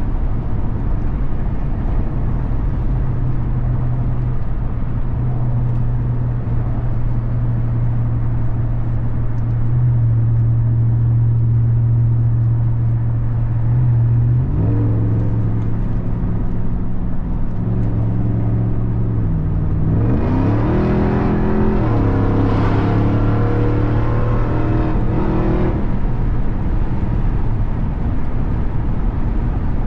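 Supercharged 6.2-litre Hemi V8 of a RAM 1500 TRX pickup running steadily under way. About 14 seconds in the engine note climbs briefly, and about 20 seconds in it dips and then rises again as the truck accelerates, with a brighter, louder edge for several seconds before settling back to a steady drone.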